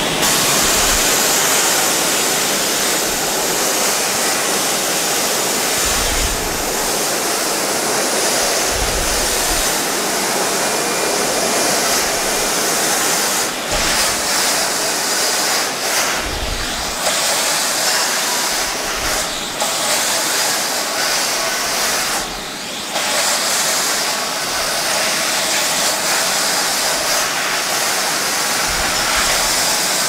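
5.5 kW Wieland IS-56 industrial vacuum cleaner running at full suction, a steady loud rush of air through the hose and floor nozzle as it sucks up a pile of red granules, dipping briefly a few times.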